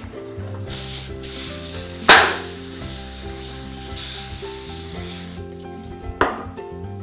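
Aerosol cooking spray hissing out of the can: a brief spurt, then a longer spray lasting several seconds. There is a sharp knock about two seconds in and another near the end, over background music.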